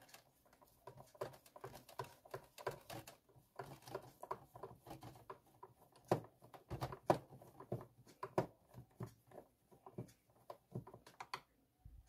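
Screwdriver undoing screws and hands handling the plastic base of a Xiaomi Mi Robot Vacuum Cleaner 1S: faint, irregular small clicks and taps, a few louder ones about halfway through.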